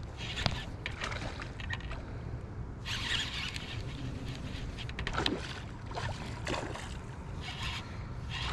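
Water splashing and sloshing in shallow river water, with scattered sharp clicks and rustles over a steady low rumble, as a small hooked northern pike is fought to the bank.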